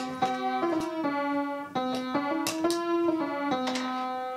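Instrumental intro music: a melody of held notes over changing chords, with no speech.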